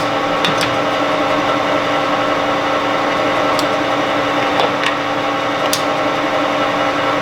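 LeBlond Makino Regal engine lathe running steadily with its power feed engaged: the spindle drive and geartrain give an even whine of several tones, with a few light clicks scattered through.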